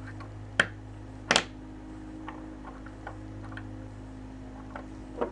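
Small metal atomizer parts clicking and tapping as they are handled and fitted together: a sharp click about half a second in, a louder double click a little later, then a few faint ticks and one more click near the end, over a steady low hum.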